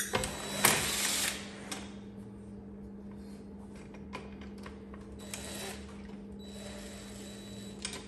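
Hand-tool work on bolts: scattered clicks and clatter of metal hardware and a socket tool, with a short louder noisy burst about a second in and a weaker one a little past five seconds. A steady low hum runs underneath.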